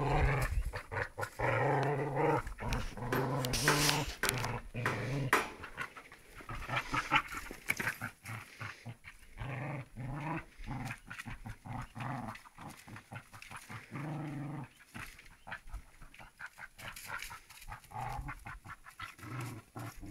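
Kelpies growling in short repeated bouts, with scuffling and clicking noises as they tussle over something on the ground.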